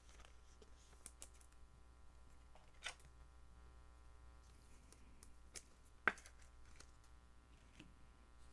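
Near silence over a low steady hum, with a few faint clicks and taps from a trading card being handled; the sharpest click comes about six seconds in.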